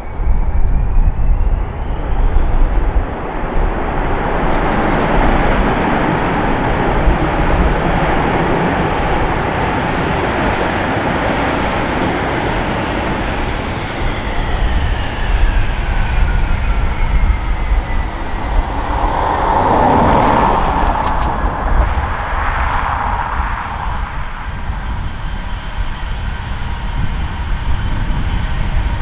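Boeing 767's twin jet engines in reverse thrust just after touchdown: a rising whine as they spool up, a steady roar, then a falling whine as they spool back down, about fifteen seconds in. A short louder rush of noise follows a few seconds later.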